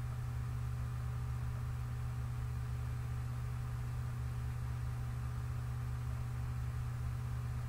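Steady low electrical hum with a faint even hiss underneath: the recording's background noise, with no other sound.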